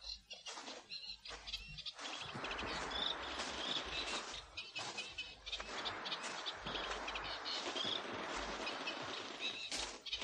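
Birds chirping as a radio-play sound effect: a few scattered chirps, then about two seconds in a dense, steady chorus of many small birds calling repeatedly.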